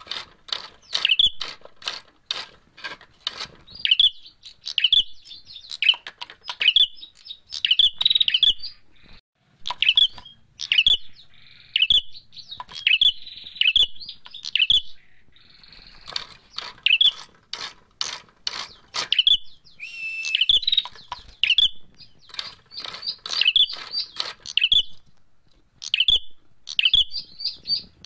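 Caged prenjak merah giving its agitated fighting call: bouts of sharp, rapid chirps, several a second, broken by short pauses. Faint wing flutters against the cage bars come in between.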